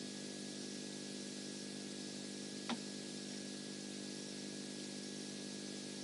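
Steady hiss with a low electrical hum from an outdoor live-cam microphone, and one short, sharp sound, too brief to name, about two and a half seconds in.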